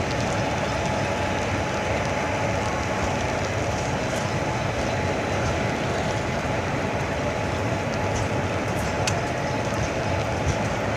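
Diesel-hauled passenger express train running on the track: a steady rumble and rattle, with a few sharp clicks near the end.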